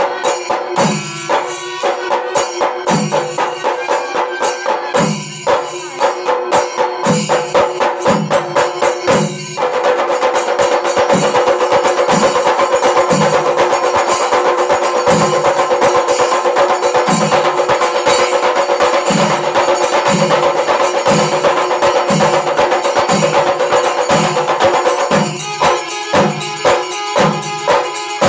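Kerala chenda melam: a massed ensemble of chenda drums with ilathalam cymbals over a steady held wind tone, the low drums beating a little under once a second. About ten seconds in, the drumming thickens into a dense, louder continuous roll, then breaks back into separate, choppier strokes near the end.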